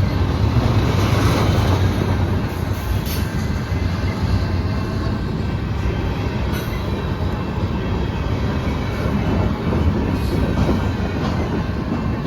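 CN freight train rolling past: a loud, steady low rumble of the cars on the rails, with a few scattered clicks.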